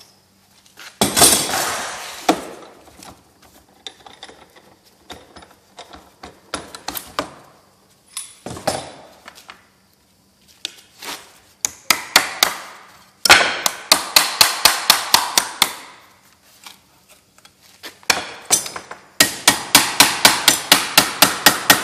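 Steel C-clamps clank loudly about a second in as they are taken off a hardwood form block, followed by scattered knocks. Then a hammer strikes aluminum sheet over the oak form block in fast runs of sharp blows, about four to five a second, bending the flange of an aircraft wing rib.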